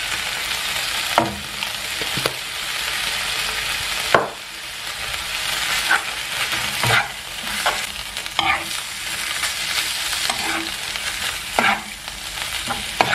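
Tuna filling sizzling in a frying pan while a metal spoon stirs it, with short scrapes and knocks of the spoon against the pan every second or two over a steady sizzle.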